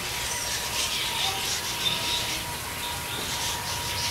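Outdoor background ambience: an even hiss with a few short, faint bird-like chirps and a thin steady hum throughout.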